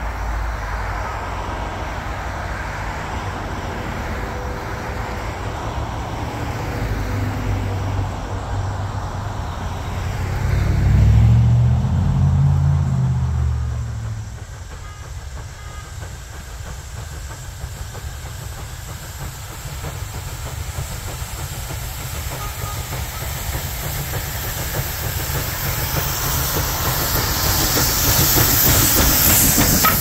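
Pennsylvania Railroad B4a-class 0-6-0 steam switcher No. 643 approaching and passing close, a low rumble with a louder low swell about ten to fourteen seconds in. Near the end it grows louder, with steam hissing from the cylinders and wheels clacking over the rail joints.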